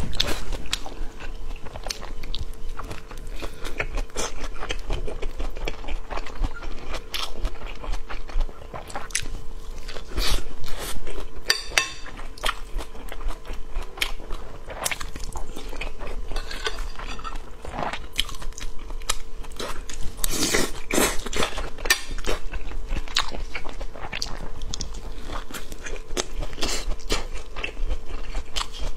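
Close-miked eating on a clip-on microphone: biting and chewing soft rolled flatbreads filled with shredded vegetables. It is an irregular stream of wet mouth clicks and small crunches, over a faint steady hum.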